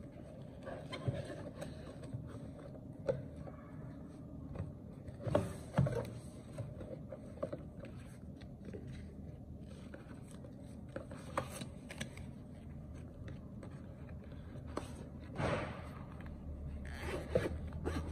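Cardboard packaging, paper inserts and plastic wrap being handled: scraping and rustling with scattered light knocks. Near the end, a zipper on a fabric carrying case is pulled open.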